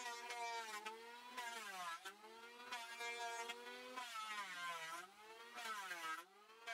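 Small engine running at high revs with a steady buzzing pitch that sags and recovers several times.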